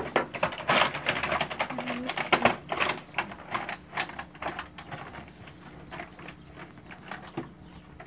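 Plastic bag and plastic packaging crinkling and rustling as recyclables are handled and pushed into the sack, densest in the first few seconds and thinning out after, with a sharp click near the end.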